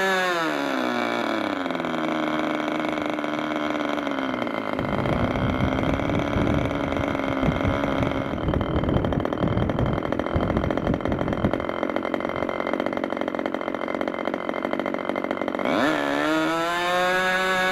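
Meteor 60 two-stroke glow engine throttled back from full speed, about 11,500 rpm, its pitch falling over about four seconds to an uneven, irregular idle at around 2,300 to 4,700 rpm. About sixteen seconds in it is opened up again, and the pitch climbs quickly back to steady full-speed running.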